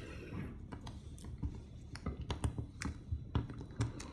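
Irregular light taps and clicks, close up, from handling sushi rice and small kitchen tools.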